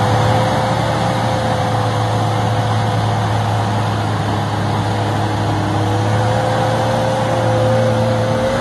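Engine of a 4x4 SUV running steadily as it crawls through deep mud, with a steady whine that rises slightly in pitch near the end.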